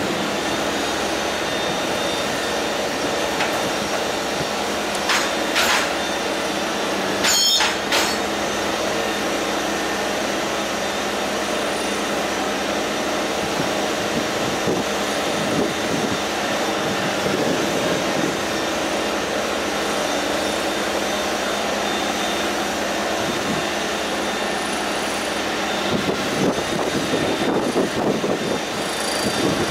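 Multiple tie tamper (track tamping machine) running steadily, its engine and hydraulics making a continuous mechanical drone. Short sharp noises stand out about five seconds in and again about seven and a half seconds in, and the sound grows rougher and busier near the end.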